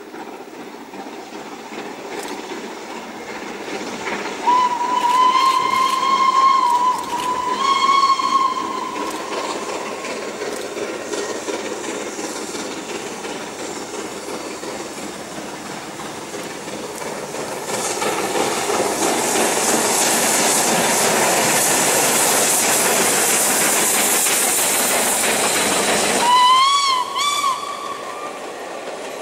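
LNER K4 steam locomotive No. 61994 The Great Marquess approaching with a train. It whistles in two blasts about four seconds in, the first long, the second shorter. Two-thirds of the way through, a loud steady hiss of escaping steam sets in suddenly, and near the end it whistles again with a wavering pitch.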